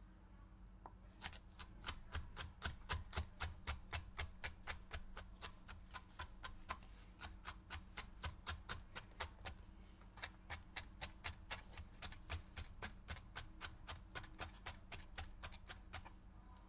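A knife chopping a pepper in quick, even strokes, about three a second, with a brief pause about ten seconds in.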